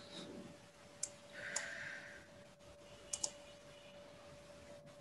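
A few sharp, scattered clicks of computer input at the desk: a single click about a second in, another soon after, and a quick pair a little past the middle, over a faint steady electrical hum.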